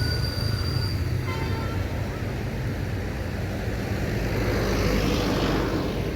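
Large tour bus engine rumbling with road noise as a bus goes by, swelling a few seconds in. A thin high horn tone stops about a second in, followed by a few faint short notes.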